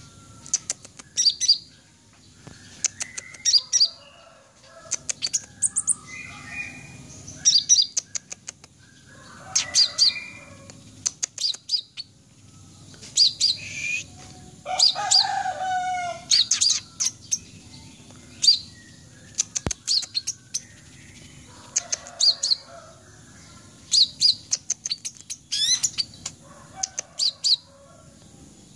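A caged male van Hasselt's sunbird (kolibri ninja, red-breasted) singing in bursts of high, thin chirps and short trills, about one every second or two. Between them is a softer rustling that fits its wings fluttering in the ngobra display.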